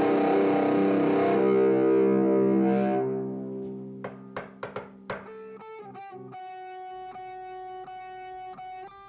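Background guitar music: a loud distorted chord rings and fades away over the first three seconds, a few sharp plucked notes follow, and a quieter line of held notes carries on from about six seconds in.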